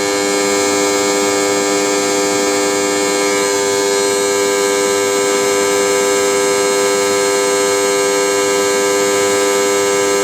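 Electrical contactor humming loudly: a steady, harsh mains buzz from the coil and magnet, the hum noise that points to a problem such as wrong coil voltage or a poorly seating armature.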